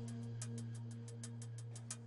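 Quiet background music: a held low drone under a fast, even ticking beat.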